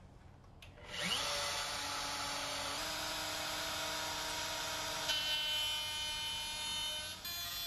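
Table-mounted wood router switched on, winding up with a quickly rising whine about a second in, then running steadily at full speed with a high whine.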